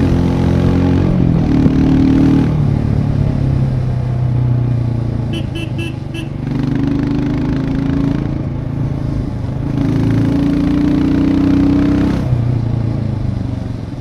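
Royal Enfield Scram 411's single-cylinder engine and exhaust pulling through the gears on the road. The engine note climbs and then drops sharply at each shift, three times. Four short high beeps come five to six seconds in.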